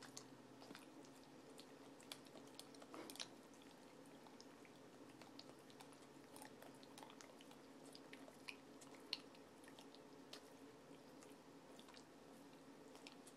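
Boxer dog licking and smacking peanut butter off a metal spoon: faint, irregular wet mouth clicks and smacks, a few of them louder.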